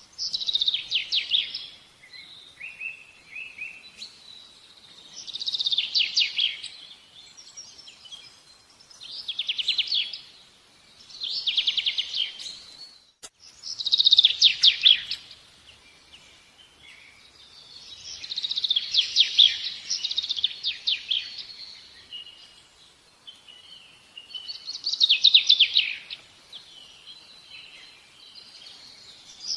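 A songbird singing in repeated high, rapid trilled phrases, each a second or two long, with short pauses between them.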